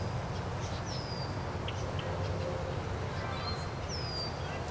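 Steady low wind noise buffeting the microphone in a gusty pre-thunderstorm wind, with birds calling over it: two high whistles sliding downward, about a second in and near the end, and a few short chirps.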